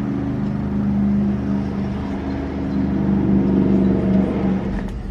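Car engine and road hum heard from inside the cabin: a steady low drone whose pitch drifts slowly, changing near the end.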